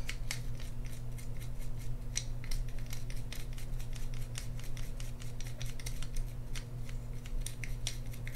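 A toothbrush scrubbing the inside of an Abu Garcia Ambassadeur 6500CL reel's metal frame: an irregular run of short, scratchy strokes, several a second.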